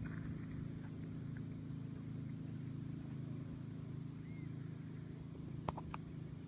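Steady low engine hum of a distant motorboat on the river, with two or three sharp clicks close together near the end.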